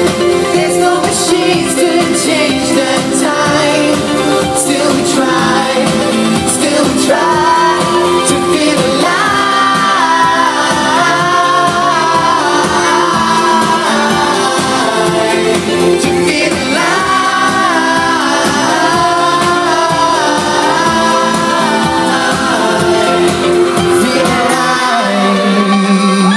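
Live pop music: a male singer singing into a handheld microphone over a loud band backing. The low bass drops out about a second and a half before the end.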